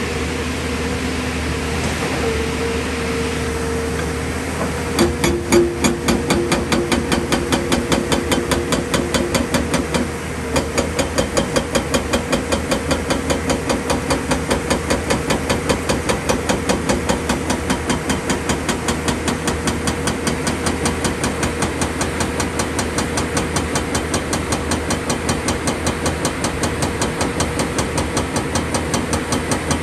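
JCB tracked excavator's hydraulic rock breaker hammering on quarry stone: a fast, even train of blows, several a second, over the diesel engine running. The engine runs alone for about five seconds before the hammering starts, with a short break about ten seconds in.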